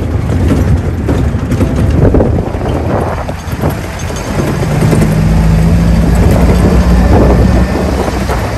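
Open jeep's engine running as it climbs a rough, rocky dirt track, with knocks and jolts from the uneven ground and wind buffeting the microphone. A steady engine drone holds from about halfway through to near the end.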